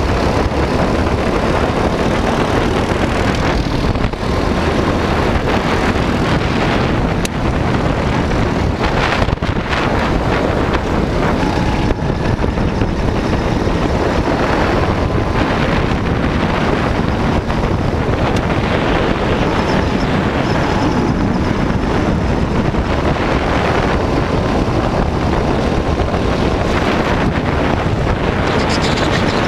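Go-kart engine running at speed on track, heard from the kart under heavy wind noise on the microphone.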